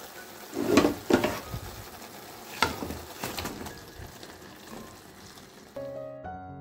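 Masala paste sizzling in oil in a metal kadai, with a metal spatula knocking and scraping against the pan several times as fried fish pieces are added and stirred in. Soft piano music comes in near the end.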